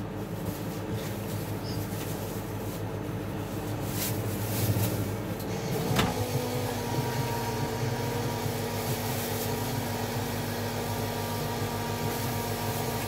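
Automatic coffee machine running with a steady mechanical hum. About six seconds in there is a click, and a new steady tone sets in, as the machine moves to its next stage of making the coffee.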